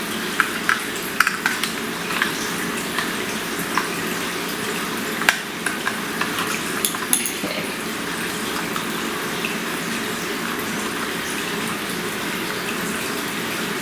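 Scattered small clicks and scrapes of a small screwdriver working the battery-cover screw on a plastic toy remote control, over a steady background hiss.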